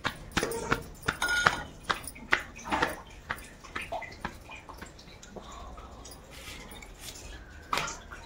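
Roti dough slapped by hand between wet palms to shape a thick tikkad: quick, irregular pats. They thin out after about three seconds, then come again briefly near the end.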